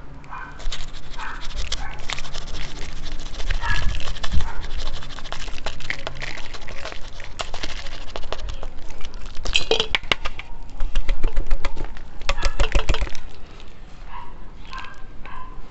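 Hands working potting substrate in around succulents in a pot close to the microphone: irregular crackling and rustling with many sharp clicks, densest about ten and thirteen seconds in.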